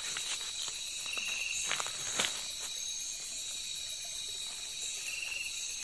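Steady night chorus of crickets and other insects, several high shrill tones held together. A brief pulsed trill comes twice, about a second in and near the end, and a few sharp clicks fall around two seconds in.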